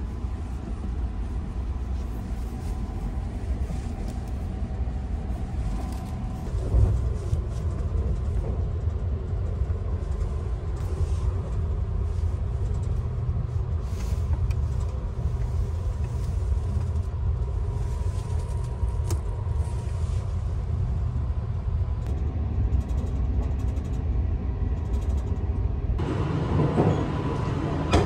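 Sunrise Seto sleeper train, a 285-series electric multiple unit, running at speed, heard from inside the carriage: a steady low rumble with a faint steady whine. It gets louder about six and a half seconds in and again near the end.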